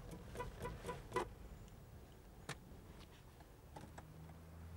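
Quiet outdoor background with a low rumble and a few faint, short ticks or taps.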